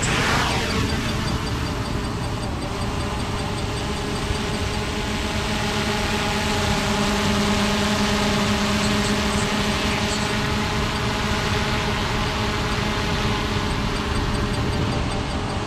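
DJI Mini 3 Pro drone's four motors and propellers spinning with a steady buzzing whine, lifting off from the ground into a low hover.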